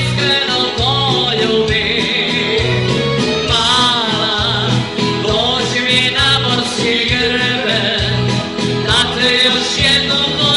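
Live party band playing a folk-pop song: a singer with a wavering, vibrato-laden voice over a held bass line and a regular drum beat.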